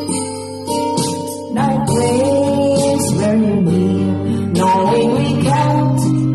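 A woman singing a slow ballad into a handheld microphone over a karaoke backing track with guitar. The accompaniment plays alone at first, and her voice comes in about one and a half seconds in.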